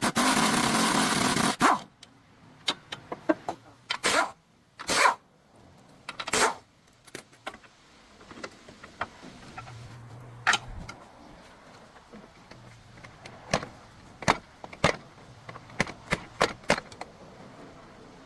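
A loud rushing noise for just under two seconds, then a series of sharp, irregular metal knocks and clicks from hand tools being worked on a car's CV axle.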